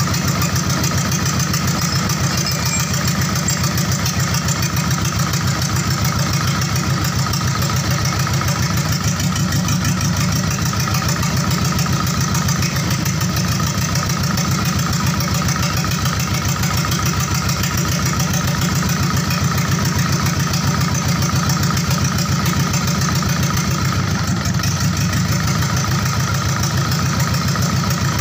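Diesel engine of a PS 125 light truck idling steadily, with an even, unchanging beat.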